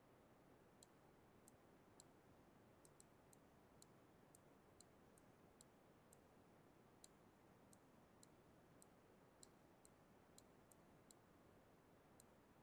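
Near silence with a faint hiss, broken by faint, short clicks at irregular intervals, a couple of dozen in all.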